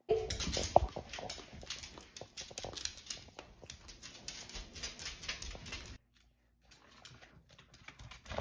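A dog playing with a plush toy: rapid, irregular clicking and rustling from chewing, pawing and claws. It drops off sharply about six seconds in, and faint scattered clicks follow.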